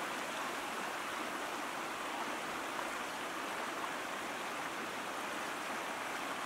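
Shallow river rapids rushing over rocks: a steady, even rush of water.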